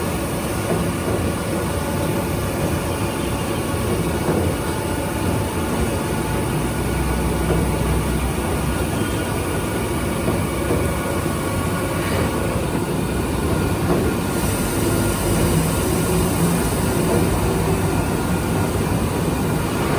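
Milling machine running a fine finishing pass on an A2 tool steel plate: a steady, dense machine noise with a constant hum. A high hiss joins in from about 14 to 17 seconds.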